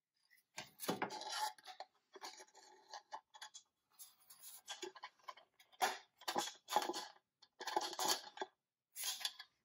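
Irregular clicks, taps and scraping from a vintage Tonka toy truck's pressed-steel frame and body and a rubber-tyred toy wheel being handled and fitted together over a steel workbench. They come in short clusters with brief pauses between them.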